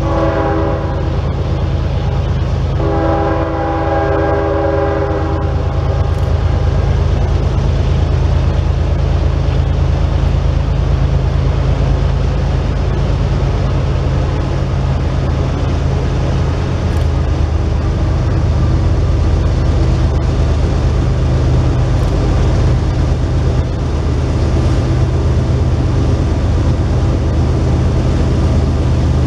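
Diesel freight train: the locomotive horn sounds a blast that ends about a second in and a second blast from about 3 to 5.5 seconds, over the steady low drone of the locomotive diesel engines as the train rolls past.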